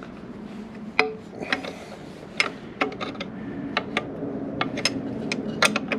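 Wrench and hand tools on a motorcycle's rear axle and belt adjuster: irregular sharp metal clicks and clinks, starting about a second in and coming faster toward the end.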